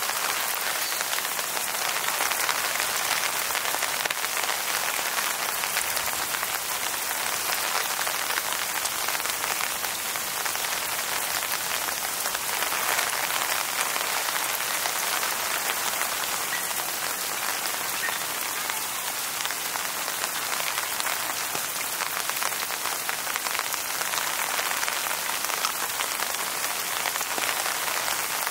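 Steady rain falling: a dense, even hiss full of the patter of individual drops.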